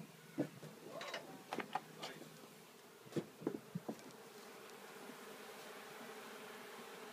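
Honeybees buzzing in a steady hum that settles in and holds from about four seconds in. In the first four seconds there are several short knocks and clicks as the wooden hive frame is handled against the box.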